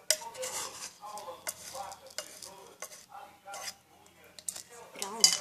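Spoon scraping and clinking against toy pots and a plate, in a run of short clicks and scrapes, as rice is spooned out and served.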